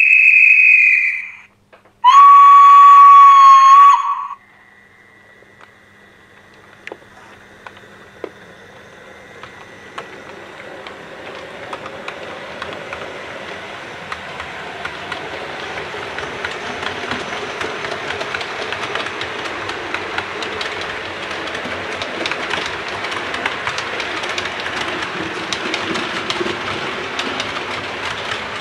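Steam train sounds: a short high whistle, then a louder, lower steam whistle for about two seconds, followed by a train getting under way, its running noise and rail clatter growing steadily louder.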